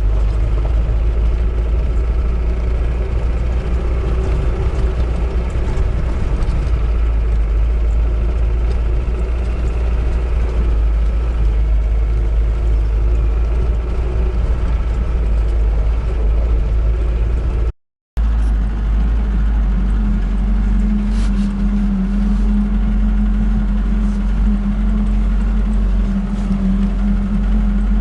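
UAZ-452 'Bukhanka' van's engine running while driving, a heavy low rumble. It breaks off for a split second about two thirds through, and after that a steady drone holds one pitch.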